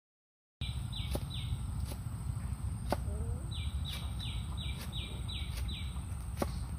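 A knife knocks on a wooden board as ingredients are cut by hand, a few sharp separate knocks, over a steady low rumble. In the middle a bird calls with a quick run of about seven falling notes. The sound drops out for a moment at the very start.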